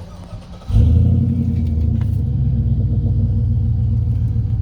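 An engine starts up close by, coming in suddenly and loudly less than a second in, then runs on at a steady low idle.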